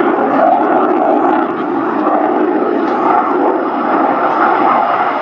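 MiG-29 fighter's twin RD-33 turbofan engines: loud, steady jet noise as the aircraft flies its display overhead.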